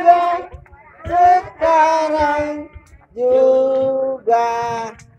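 Voices singing a birthday song in long held notes, in five short phrases with brief pauses between them.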